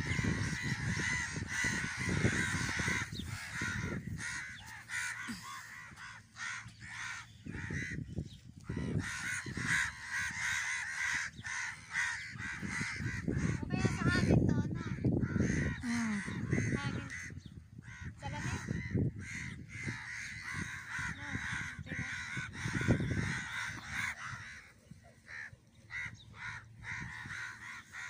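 A large flock of crows calling over one another in a continuous noisy commotion as they circle overhead.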